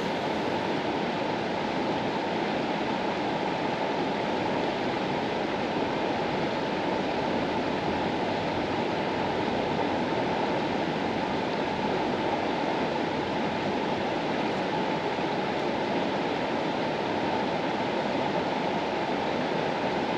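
The Mastallone, a mountain river, flowing: a steady, even rush of water that holds at the same level without breaks.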